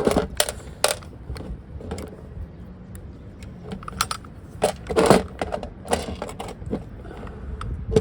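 Irregular small metal clicks and clinks of hand work on a keyless entry door lock: an Allen key backing out the screws that hold its two halves together, with a louder cluster of clinks about five seconds in.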